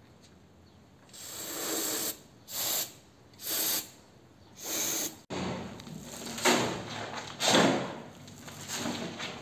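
Aerosol spray can hissing in four short bursts. After a cut, a steel shovel scrapes and scoops through a sand mix on a concrete floor, with two loud scrapes in the second half.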